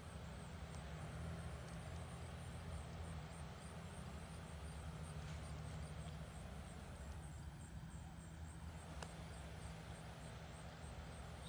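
Faint outdoor night ambience: a steady low rumble with a faint high pulsing tone and a few light clicks from the hand-held phone.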